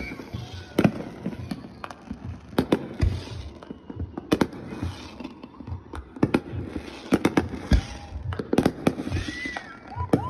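Fireworks going off: an irregular run of sharp bangs and pops over crackling.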